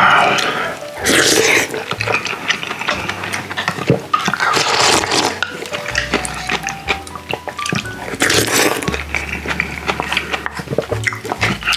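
Close-up eating sounds, with loud wet slurps and chewing in a few bursts a few seconds apart and a wooden spoon scraping a ceramic bowl, over background music.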